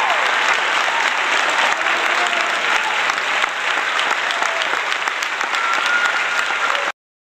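Crowd applause, a dense patter of many hands clapping, which cuts off suddenly near the end.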